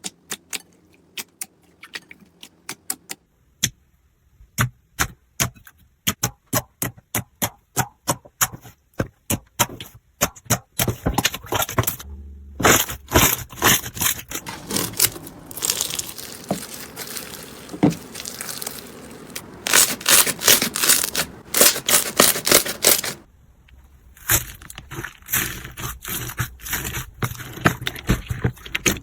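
Slime being squished and poked by hand: a run of sharp, sticky clicks and pops, sparse at first and growing dense, with short breaks about twelve and twenty-three seconds in.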